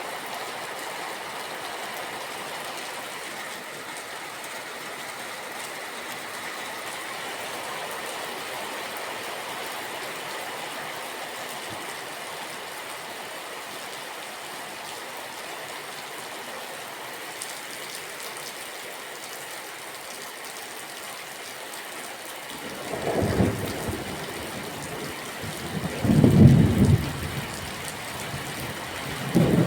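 Steady rain hiss. Near the end, deep thunder rumbles in three swells, the second the loudest.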